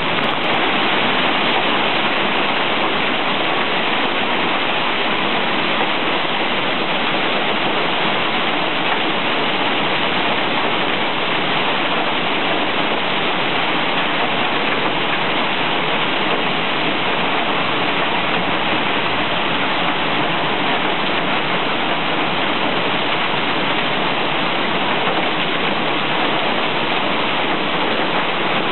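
Hailstorm: hailstones pelting the street and parked cars in a dense, steady hiss of impacts.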